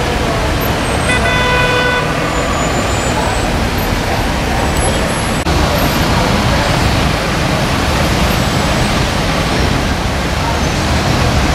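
Road traffic: steady noise of cars and motorbikes moving along the street. A horn sounds once, for about a second, about a second in.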